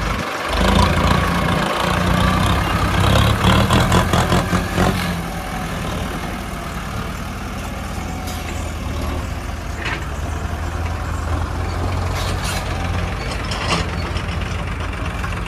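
Diesel tractor engine running, louder for the first few seconds with a rapid clatter of knocks about three to five seconds in, then settling to a steady run while it tows a trolley loaded with stone.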